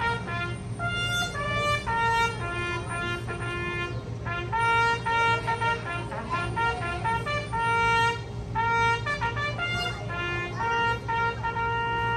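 Brass band, likely the military band, playing a tune of held notes and chords, with a steady low rumble underneath.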